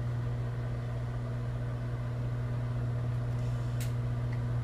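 Microwave oven running with a steady low hum while it heats a cut-up bar of Ivory soap.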